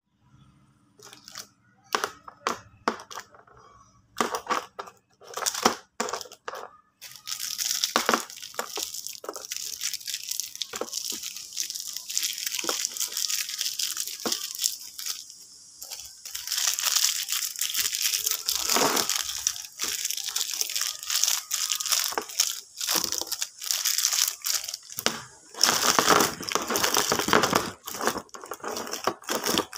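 Clear plastic lollipop wrappers crinkling and tearing as they are pulled open by hand. At first there are a few separate crackles, then about a quarter of the way in it becomes near-continuous crinkling.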